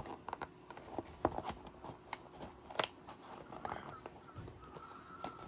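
Fingers picking and scratching at tape on a small cardboard toy box, with scattered light clicks and rustles of the cardboard.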